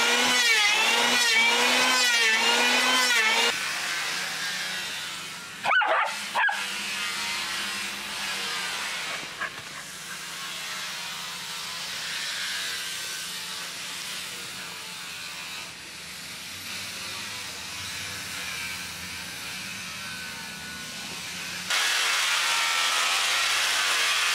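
An electric hand planer running under load through a hardwood beam, its whine wavering as the cut bites. A dog barks a few times in a quieter stretch. Near the end a handheld disc grinder-sander starts grinding the wood with a steady loud rasp.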